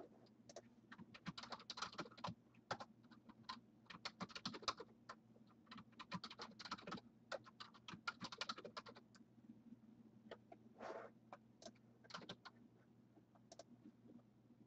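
Faint typing on a computer keyboard in quick runs of keystrokes with short pauses between, thinning to a few scattered clicks in the second half, over a low steady hum.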